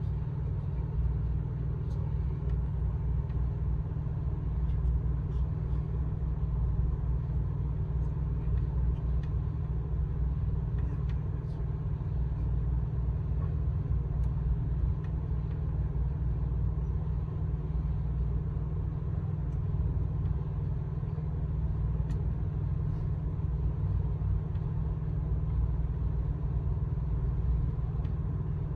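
Amtrak California Zephyr passenger train rolling along the track: a steady low rumble of the running train, with a few faint ticks.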